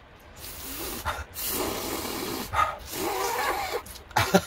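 Snow crab meat being sucked noisily out of a leg shell: several airy slurps over a couple of seconds, then a few sharp clicks near the end.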